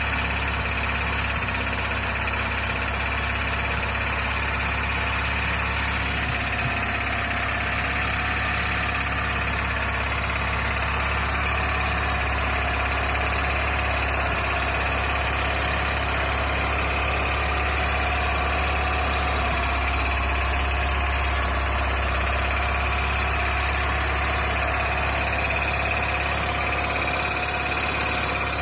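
VAZ-1111 Oka's two-cylinder engine idling steadily, with a knock from its water pump. The pump was replaced only about 100 km earlier, so the knock points to the new pump failing.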